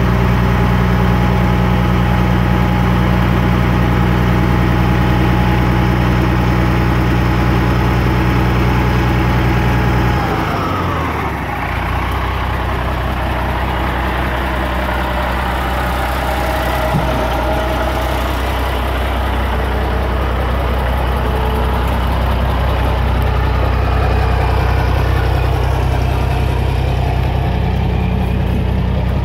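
1988 Freightliner FLC120 tandem-axle dump truck's diesel engine running steadily at raised speed, then dropping to idle about ten seconds in and idling steadily.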